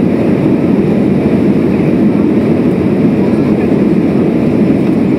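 Steady noise of a jet airliner's engines and airflow heard inside the cabin from a seat over the wing, as the plane climbs out after takeoff. A deep, even rumble with no changes.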